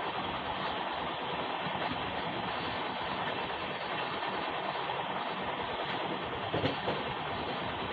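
Passenger train of LHB coaches running at speed, heard from an open coach door: a steady rush of wheel-and-rail noise mixed with wind on the microphone, with one short louder burst about two-thirds of the way in.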